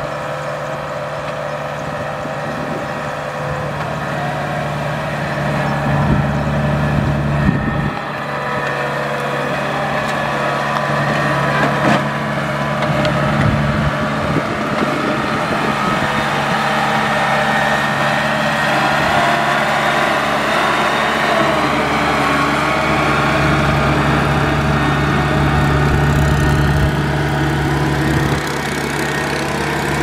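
Rice combine harvester running steadily, its engine giving a constant low hum over the rattle of the machinery. It grows a little louder about a third of the way through.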